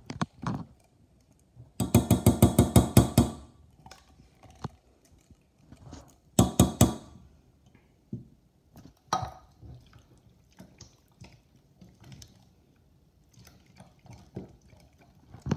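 Metal utensil rapidly tapping and knocking against a metal can and saucepan as food is scooped into the pan: a burst of about a dozen quick ringing taps about two seconds in, a shorter burst around six and a half seconds, a single knock near nine seconds, and light clicks in between.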